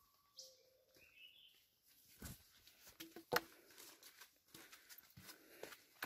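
A few short whistled bird calls in the first two seconds, then irregular footsteps and knocks on a dirt forest trail, the loudest a sharp knock about three seconds in.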